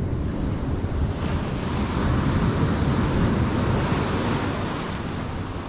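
Ocean surf washing up the sand and breaking against shoreline rocks, with wind buffeting the microphone. The wash swells about a second in and eases off near the end.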